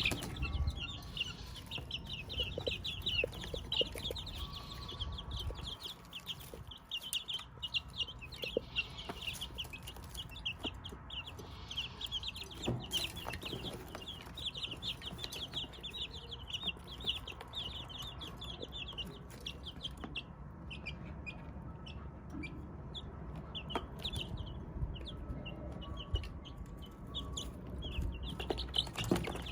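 Chickens clucking and chirping: a dense run of short, high chirps for about twenty seconds, thinning out, then picking up again near the end.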